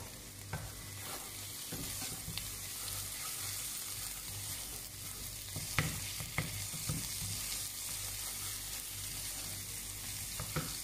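Ground onion, ginger and garlic paste sizzling in oil in a cooking pot, with a steady hiss and a few sharp clinks and scrapes of the spoon against the pot as it is stirred.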